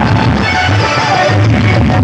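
Loud dance music played through a large DJ loudspeaker rig, with heavy recurring bass and a melody line sliding in pitch.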